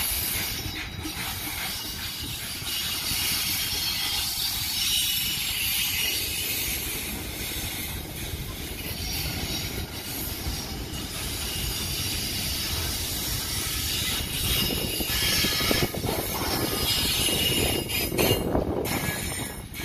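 Container wagons of a freight train rolling past close by: a steady rush of steel wheels on the rails with a few clacks, getting louder in the last few seconds.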